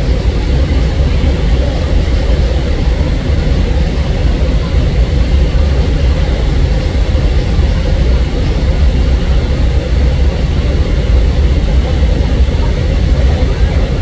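Water rushing over a waterfall, a steady loud noise with no breaks.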